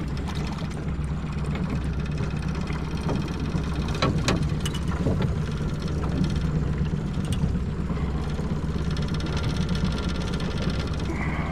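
Boat engine idling with a steady low hum, with a few sharp knocks about four seconds in. A thin higher whine joins in over the last few seconds.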